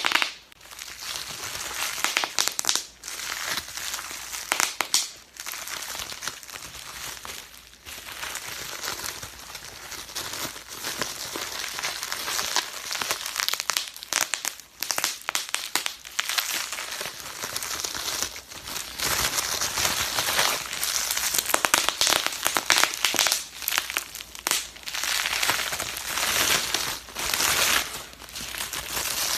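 Bubble wrap being squeezed and worked by hand: its bubbles pop in dense, rapid crackling runs mixed with the crinkle of the plastic sheet, broken by short pauses every few seconds.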